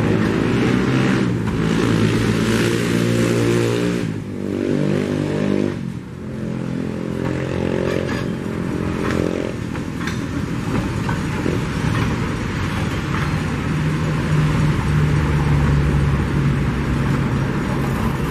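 Loaded mineral hopper wagons of a freight train rolling past at close range: a continuous rumble and clatter of steel wheels on the rails, with a pitched droning that shifts pitch in steps during the first half and a steadier low drone near the end.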